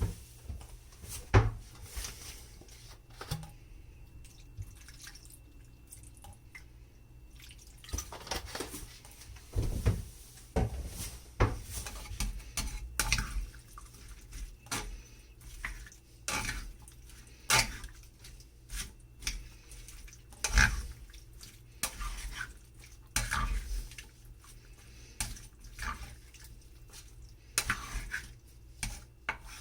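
Kitchen utensils clinking and knocking against a dish at irregular intervals as food is mixed, with some wet dripping.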